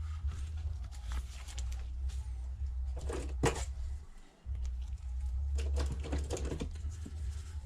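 Light clicks, taps and rustling from handling a tablet and tools during a screen repair, over a steady low hum that stops briefly about halfway through.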